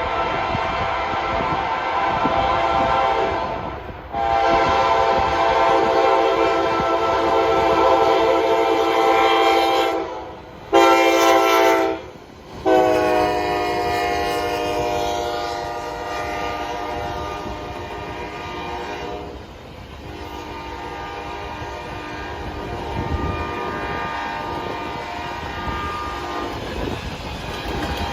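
Freight diesel locomotive's multi-chime air horn blowing the grade-crossing signal: two long blasts, a short one, then a final long blast that drops in pitch as the locomotive passes. After that come the steady rumble and clickety-clack of the freight cars rolling by.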